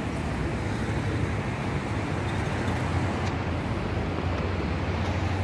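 Steady outdoor noise: a low rumble of wind on the microphone mixed with the hum of city traffic.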